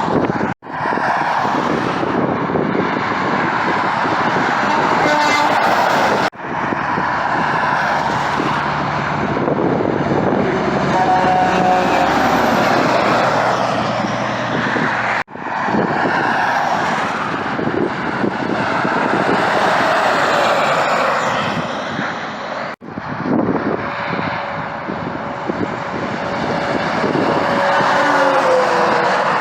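Trucks passing on a highway, with engine and tyre noise swelling and fading. The sound is broken by several abrupt cuts.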